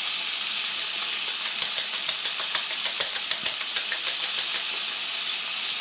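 Bacon sizzling in a frying pan with a steady hiss, while a fork clicks lightly and irregularly against a bowl as eggs and grated cheese are whisked.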